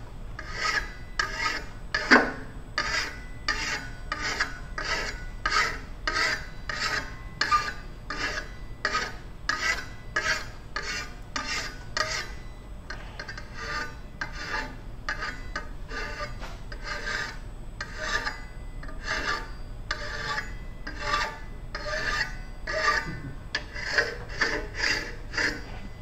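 Hand file deburring the edge of an aluminum disc for metal spinning: quick rasping strokes, about two a second, with a short pause a little before halfway.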